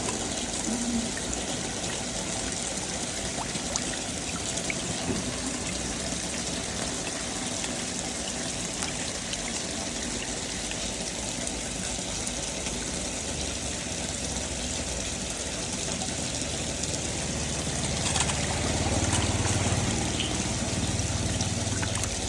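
Water pouring and trickling steadily, with a deeper rush of water building up about three quarters of the way through.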